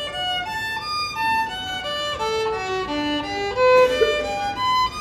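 Violin bowed in a slow single-line melody of short separate notes, with the loudest note a little before four seconds in.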